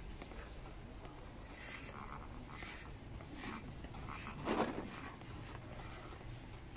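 Faint rustling and handling noises, soft and irregular, with one louder swish about two thirds of the way through.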